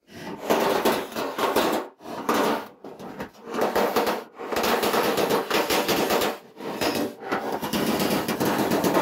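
Body hammer beating a steel car wing's flange against a hand-held dolly: quick runs of many metallic blows with brief pauses between them, flattening out the puckers in the flange.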